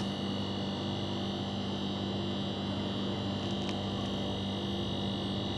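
Steady electrical hum with a thin high whine above it, unchanging throughout; a faint click about three and a half seconds in.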